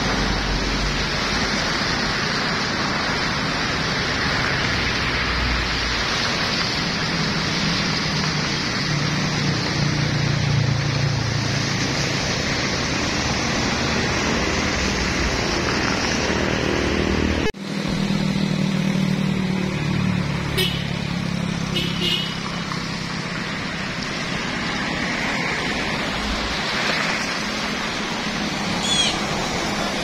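Steady hum of city road traffic with motorcycle and car engines. The sound drops out for an instant just past halfway, and after that a bird chirps a few times over the traffic.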